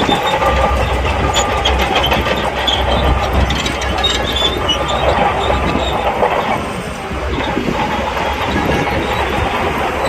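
Crawler bulldozer working: its diesel engine running steadily under a dense clanking and rattling of the steel tracks.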